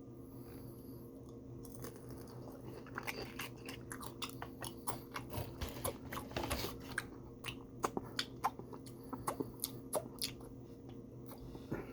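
A person chewing fried fast food (chicken strips and curly fries) with crunching: a dense run of short chewing clicks that starts about two seconds in and thins out near the end.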